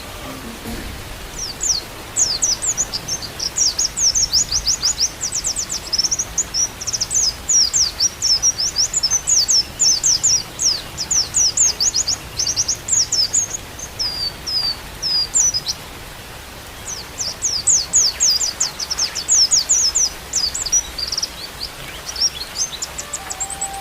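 White-eye (pleci) singing: long runs of rapid, high, sweeping chirps, broken by a pause of about a second and a half past the middle, over a steady hiss of rain.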